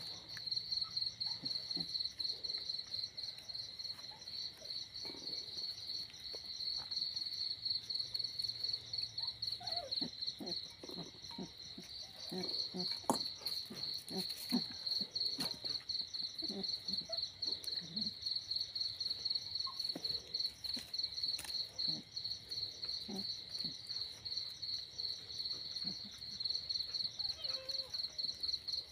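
Insects chirping in a steady, fast-pulsing high trill. Over it come short, soft chewing and snuffling sounds from a piglet eating out of a bowl, thickest in the middle stretch.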